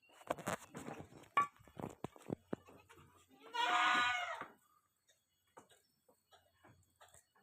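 A goat bleats once, a loud call about a second long, a little after the middle. Before it come scattered knocks and rustling in the pen.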